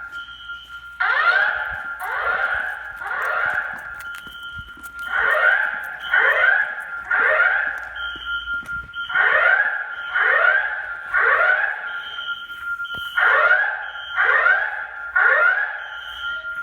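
Fire alarm system in alarm: a loud sweeping siren tone repeating roughly once a second over a steady high tone, with short higher beeps every second or so.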